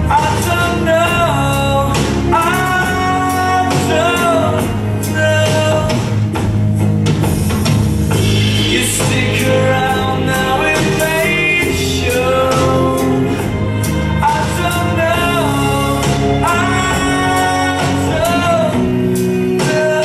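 Slow bolero dance music: a singer over instrumental backing, with long, gliding sung notes.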